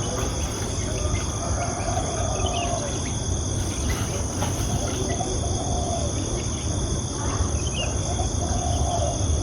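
Steady insect chorus, a constant drone at several high pitches over a low background rumble, with a few soft short low calls every couple of seconds.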